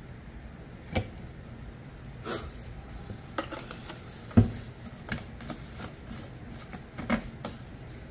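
About six sharp knocks and taps of containers being handled and set down on a work table while two-part resin is measured out before mixing, the loudest about four and a half seconds in.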